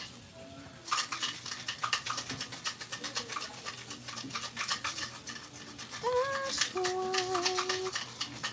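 Whole fish sizzling and spitting on an electric grill pan: a dense run of fine crackles. From about six seconds in, a few steady held notes join it, moving up and down in pitch in steps.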